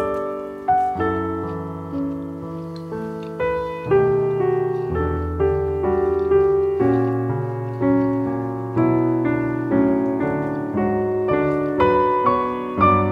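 Background piano music: a slow piece of single notes and chords, each note struck and fading.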